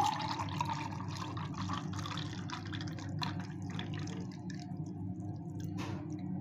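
Blended green mango juice poured in a stream from a mixer jar into a glass bowl: a steady splashing as the bowl fills, with a few drips.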